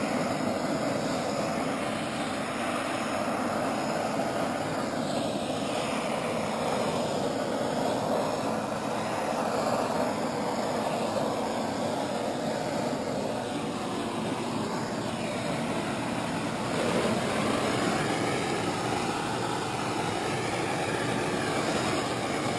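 Propane torch flame hissing steadily as it is swept back and forth over a sheet of plastic to soften it for bending, its whooshing tone rising and falling slowly as the flame moves.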